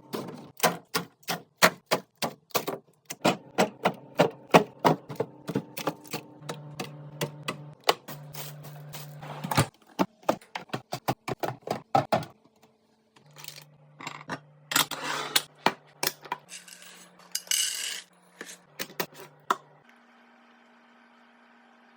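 Groceries and food containers being handled and set down during a restock: a fast run of sharp clicks, taps and knocks of plastic and packaging, then a few longer rustling, crinkling stretches.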